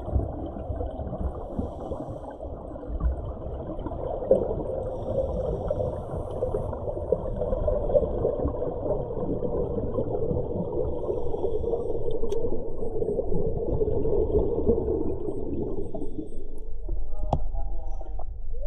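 Underwater ambience: a muffled, rushing bubbling from scuba divers' exhaled air. Near the end it changes to lighter splashing and sharp drips of water at the surface as the camera comes up.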